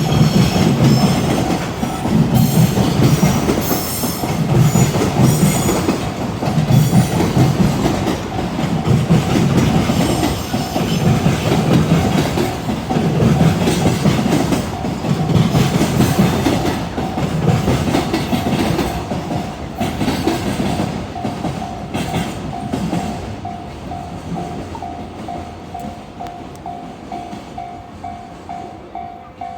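Freight train passing over a level crossing, its wheels clattering over the rail joints in a rhythm that repeats about every second and a half. The crossing's electronic warning bell rings steadily above it. The train noise fades over the last several seconds, while the bell keeps ringing about twice a second.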